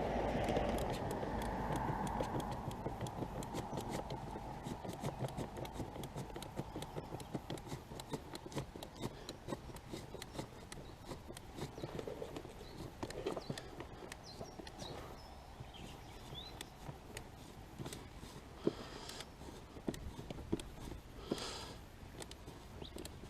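A screw being tightened by hand with a tool into a body panel: a long run of small, irregular clicks and scrapes, with a soft rushing noise over the first couple of seconds.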